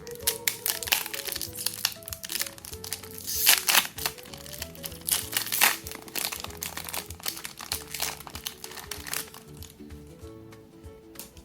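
Crinkling and crackling of a Pokémon booster pack's foil wrapper being handled, in dense bursts with the loudest crackles about three and a half and five and a half seconds in, over background music.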